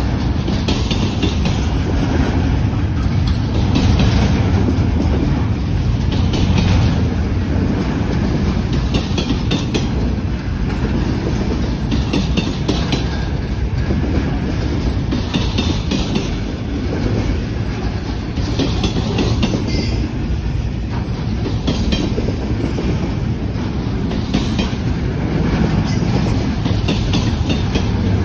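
Double-stack intermodal freight cars rolling past: a steady low rumble of steel wheels on rail, with a clickety-clack of wheels over rail joints coming back every two to three seconds.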